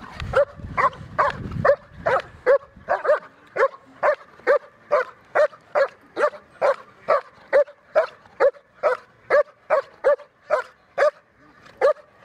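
A German Shepherd barking in a steady, even rhythm, about two barks a second, as it confronts a helper holding a bite sleeve in protection training.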